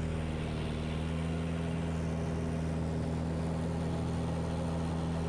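Piston engine and propeller of a DR107 One Design aerobatic plane running steadily, with air rushing past, heard in the cockpit.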